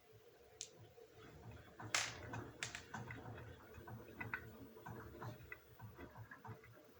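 Beko washing machine giving a quick run of irregular soft clicks and knocks, the loudest about two seconds in, over low dull thuds, with no steady spin whine.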